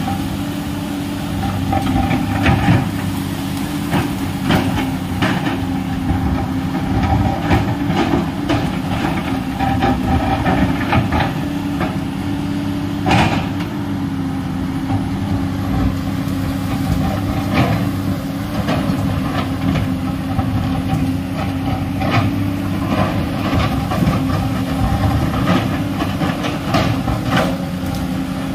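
Komatsu PC210LC hydraulic excavator's six-cylinder diesel engine running steadily under digging load, with frequent knocks and scrapes as the steel bucket bites into a rocky earth slope; the loudest knock comes about halfway through.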